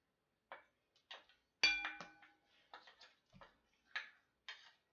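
Metal spoon clicking and tapping against a bowl while stirring slime, with one louder ringing clink about a second and a half in.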